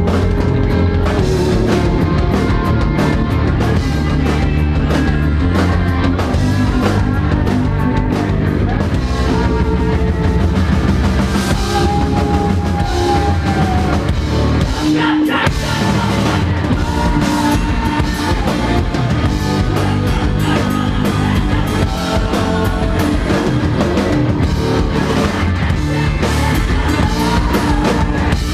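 Rock band playing live at full volume: drum kit and amplified instruments. About halfway through, the bass and drums drop out briefly before coming back in.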